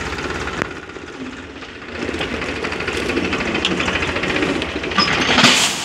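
Tractor diesel engine running a rear-mounted loader, easing off for about a second and then working harder again as the bucket is raised. Near the end comes a loud rattling rush as the load of gravel tips into the metal trolley.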